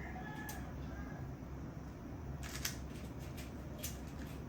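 Plastic 3x3 Rubik's Cube being turned by hand: a few quick, sharp clicks of the layers snapping round, the densest run a little over two seconds in, over a low steady hum.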